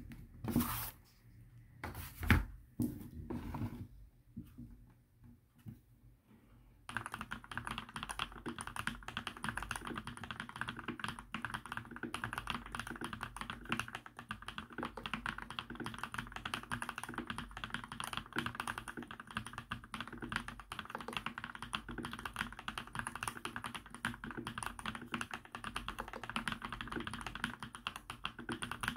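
A few loud knocks and thumps as a keyboard is handled. From about seven seconds in comes steady, fast typing on an Mstone Groove T keyboard with fully lubricated Milky v2 linear switches (45 g).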